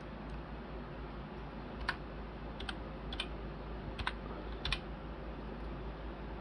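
Computer keyboard keystrokes: about eight separate clicks, unevenly spaced, as numbers are typed in, over a steady low hum.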